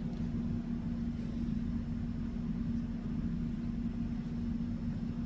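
Steady low mechanical hum on one constant tone over a low rumble, with no handling knocks or clicks.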